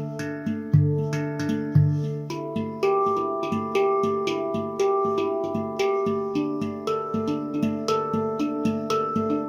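Taopan Mini handpan in Dimelodia Extended tuning played with the fingers: a quick, steady stream of struck notes, each ringing on under the next. Deep bass notes sound twice in the first two seconds, then the melody moves to higher notes.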